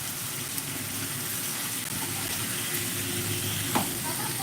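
Food frying in hot oil in a pan, a steady sizzling hiss, with one sharp utensil knock near the end.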